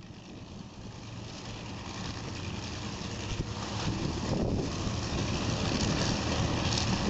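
Avro Lancaster bomber taxiing on its four Rolls-Royce Merlin V12 engines, a steady multi-engine drone growing steadily louder, with some wind noise on the microphone.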